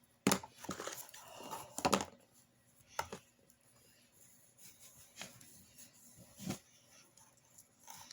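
Handling noises from kinetic sand and its molds being worked by hand: short knocks and scrapes, a cluster in the first two seconds, then single knocks about 3, 5 and 6.5 seconds in.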